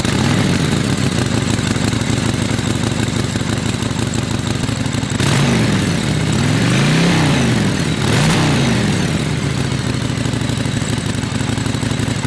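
Harley-Davidson Forty-Eight's 1200 cc air-cooled V-twin idling through its stock exhaust, with three quick throttle blips that rise and fall in pitch around the middle.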